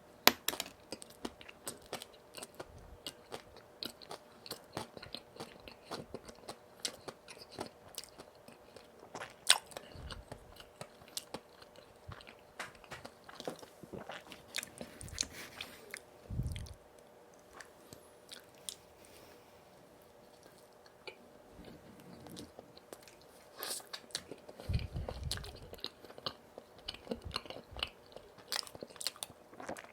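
Close-miked eating of donuts: biting and chewing with many small crunching clicks and crackles, and a few low dull thumps. A faint steady hum lies underneath.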